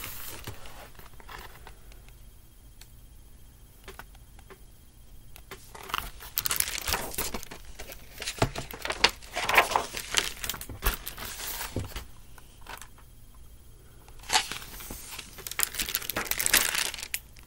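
Rustling, scraping and crinkling of a hardcover picture book and hands handled right against the microphone. The crackle comes in ragged bouts, a long one in the middle and another near the end.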